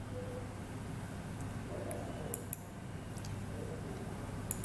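Computer mouse clicking: a few short sharp clicks, two a little over two seconds in and two more near the end, over a steady low hum.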